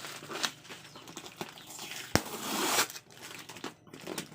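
Packaging being handled while unpacking a box: scattered rustling and crinkling, with a sharp click about two seconds in followed by a louder rustle lasting under a second.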